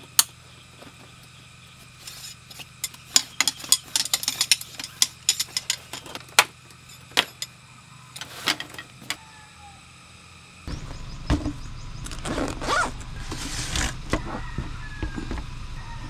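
Sharp clicks and rattles of aluminium frame poles and a tabletop panel being fitted onto a camp storage-box stand, in quick runs of clicks. About ten seconds in a steady low hum starts, with more handling clicks.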